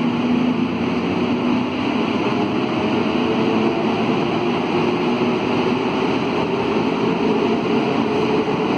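CAF NS-07 rubber-tyred metro train running steadily at speed through a tunnel, heard from inside the car: an even rolling rush with a faint steady hum underneath.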